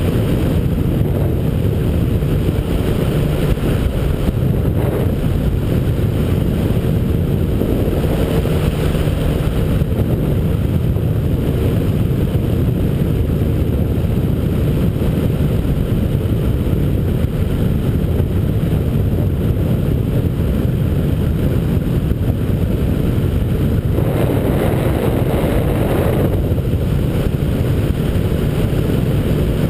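Ultralight trike's engine and propeller running steadily in cruise flight, heard from the open cockpit with wind buffeting the microphone. The sound swells briefly for about two seconds near the end.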